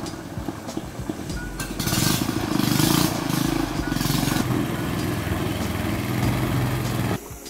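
Long-tail boat motor running steadily as the longboat moves through shallow water, its propeller throwing up spray. The engine sound cuts off abruptly near the end.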